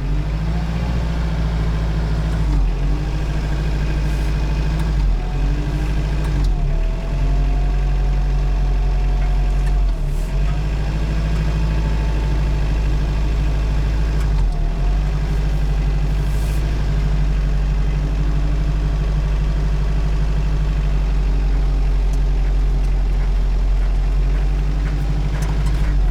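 Hyundai Porter light truck driving: steady diesel engine and road noise, with a scraping squeal that comes and goes. The driver calls it scraping and takes it for the front brakes, which need servicing after the truck stood unused for a long time.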